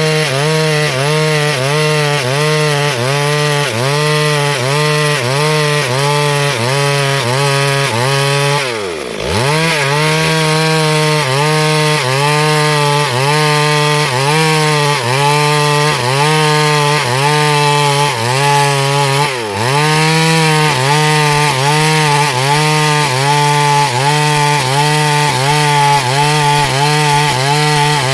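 Chainsaw running under load while sawing a log lengthwise into boards, its engine pitch dipping and recovering about once a second. Twice, about nine and nineteen seconds in, the revs drop sharply and pick up again.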